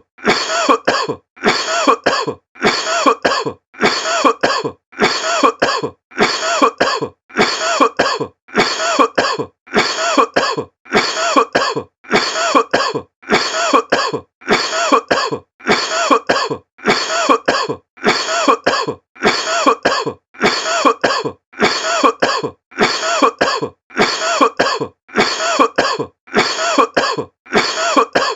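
A person coughing over and over in short, rough coughs that repeat at a steady, even pace of about one a second, like a loop.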